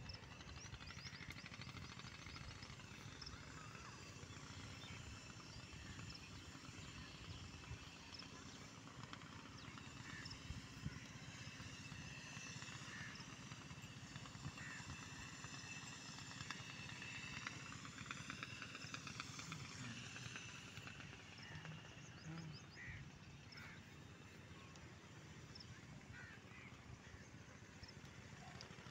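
Faint outdoor background: scattered short, high chirps over a low, steady rumble.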